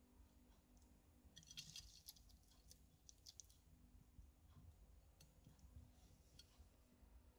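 Bearded dragon biting and chewing lettuce leaves: faint crisp clicks and crunches, in a cluster about a second and a half in, another about three seconds in, and a few single clicks later.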